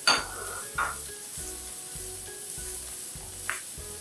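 Chopped kai lan sizzling as it sautés in oil in a wok, stirred with a spatula. Sharp scrapes of the spatula against the pan come right at the start (the loudest), just under a second in, and again near the end.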